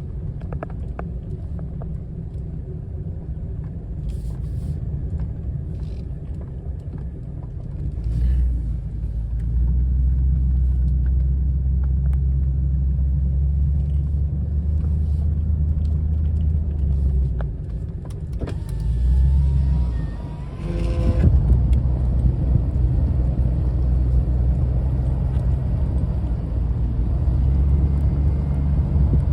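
Pickup truck engine running at low speed through deep snow, a steady low rumble that grows louder about a third of the way in and dips briefly twice about two-thirds of the way through.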